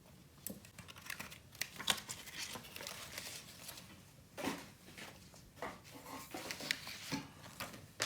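Packaging crinkling and rustling, with scattered small clicks and knocks, as soldering-station accessories are unpacked and handled.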